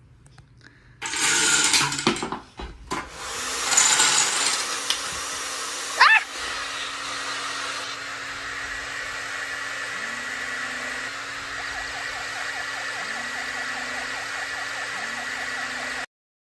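Objects clattering and knocking, then a hair dryer running steadily with a low hum under the rush of air. A brief loud sweeping tone about six seconds in. The sound cuts off suddenly near the end.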